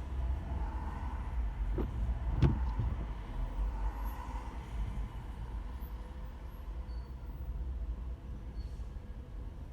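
Steady low rumble of a car driving in slow city traffic. There are two sharp clicks about two seconds in; the second is louder.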